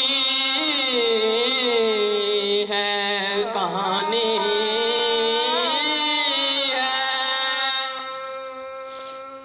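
Qawwali singing: a male voice held on long, wavering notes without words, sung into a microphone and amplified. It drops in loudness about eight seconds in and fades away.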